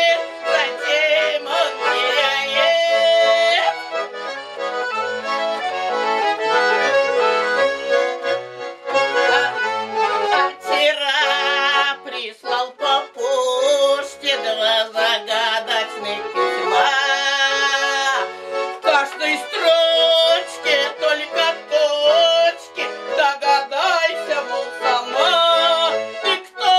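Russian button accordion (garmon) playing a folk tune, with full chords and a running melody.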